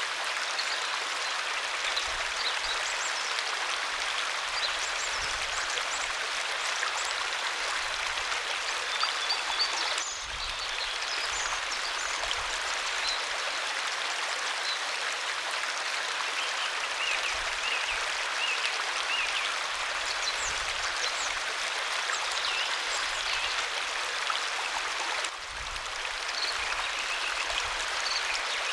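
Waterfall's steady rushing water, with faint high chirps over it now and then. The level dips briefly twice, at about ten seconds and again near the end.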